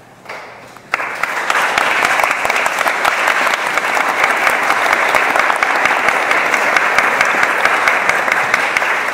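Audience applauding after a pipe organ performance. A few claps come just after the start, then full, steady applause from about a second in.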